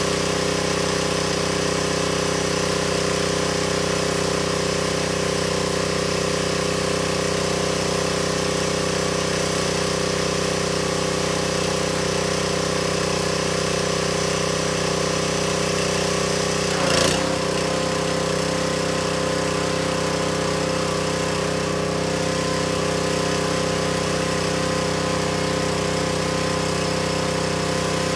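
Pressure washer's engine running steadily under the hiss of the spray. About two-thirds of the way through, the engine note dips briefly and the sound gets louder for a moment.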